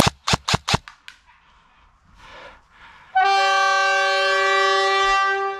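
Four sharp airsoft gun shots in quick succession within the first second, then a long horn blast, one steady tone held about two and a half seconds: the signal that ends the game.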